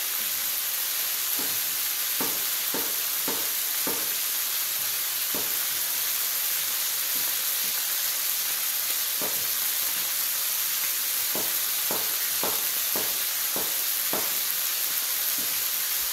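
Food frying in a pan: a steady sizzle, with scattered short knocks of a utensil against the pan while it is stirred.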